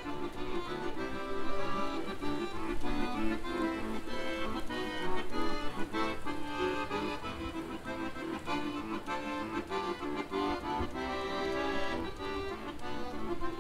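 Accordion played live by a street musician: a tune of held chords and melody notes that moves steadily from note to note without a pause.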